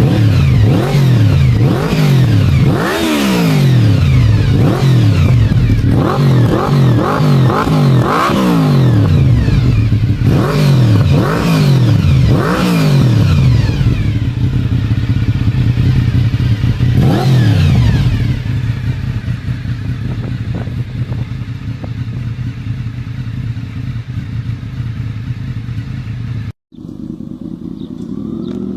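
Honda VFR750 RC36 V4 engine revved over and over with quick throttle blips, its pitch rising and falling sharply, then settling to a steadier, quieter idle. Near the end the sound cuts out for a moment and resumes as a steady idle with a different tone.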